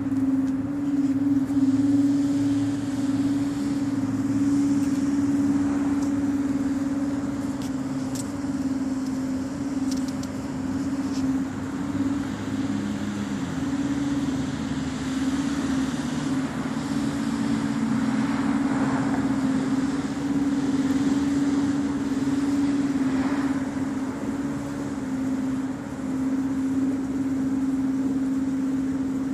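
A steady, unbroken drone at one low pitch with a fainter overtone above it. It is the unexplained humming sound that the recorder calls weird and says is not a nearby plane.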